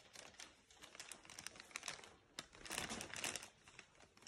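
Faint, irregular crinkling and rustling of gift wrapping being handled as a present is opened.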